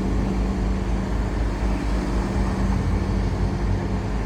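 A heavy engine running steadily at an even pitch, with city street traffic behind it.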